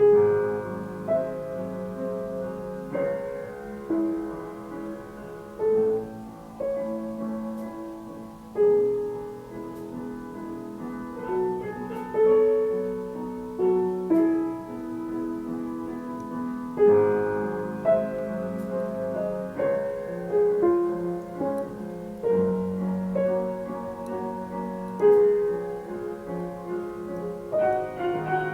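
Piano playing a slow melody over chords, note following note without a break.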